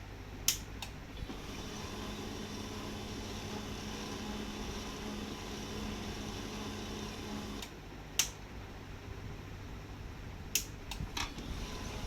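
Canon LBP2900 laser printer's new main motor and gear train running smoothly for about six seconds, then stopping, with a few sharp clicks before and after. The even running shows the motor no longer jams.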